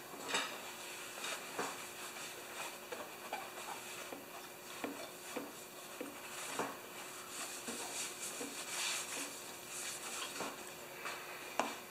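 Cloth rag rubbing and wiping over a lawnmower deck, a faint rustle broken by scattered small clicks and taps of handling.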